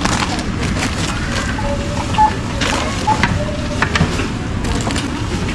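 Groceries being unloaded and handled at a supermarket checkout: scattered knocks, clicks and rustling over steady store background noise, with a few short electronic beeps.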